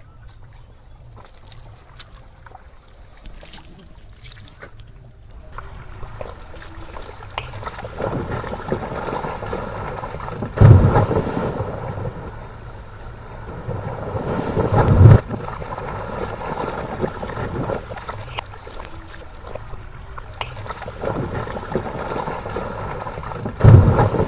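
Water and wind noise out on a river, starting quiet with a thin steady high tone, then growing, with three loud low buffeting gusts or thumps spread through it.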